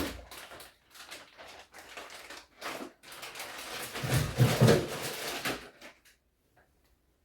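Things being handled in a refrigerator: a run of knocks, clatters and rustling, busiest about four to five seconds in, dying away about six seconds in.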